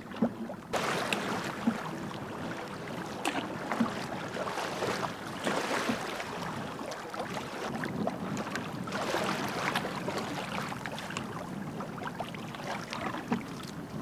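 Choppy lake water splashing and lapping against a moving canoe, a dense rush of small waves with repeated short splashes, starting abruptly just under a second in.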